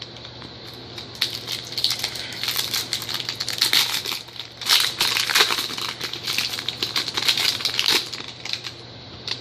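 Trading-card pack wrappers being torn open and crinkled by hand, an irregular run of crackles that stops shortly before the end.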